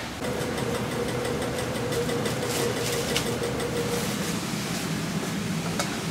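Steady drone of commercial kitchen machinery with a faint whine that stops about four seconds in, and light clicks and taps as egg trays are handled.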